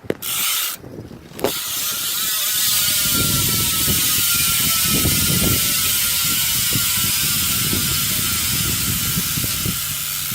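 Profile Elite freehub on a BMX race wheel buzzing as the wheel freewheels, a rapid, really loud ratcheting of the pawls. It gives two short spurts at first, then runs steadily for about nine seconds, slowly dropping in pitch as the wheel slows, and cuts off suddenly.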